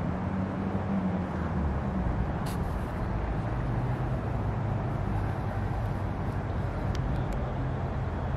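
Steady low rumble of a vehicle: a continuous hum with road noise, and no call to prayer audible.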